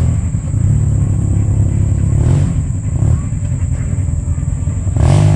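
Side-by-side UTV engine running steadily with a low rumble while the stuck machine is worked out of deep mud. A voice shouts near the end.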